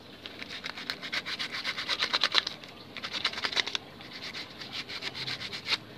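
Sandpaper rubbed rapidly back and forth over a small piece of coconut shell, a fast run of scratching strokes, a short pause a little under four seconds in, then more strokes.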